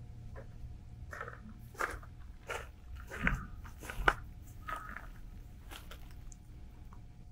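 Slow footsteps crunching on a concrete path, about one step every 0.7 seconds, the loudest about four seconds in.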